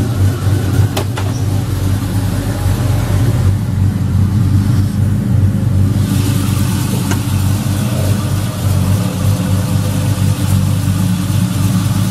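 1986 Chevrolet Monte Carlo SS's fuel-injected V8 idling steadily. The sound turns brighter about halfway through as the hood is raised, with a couple of light clicks.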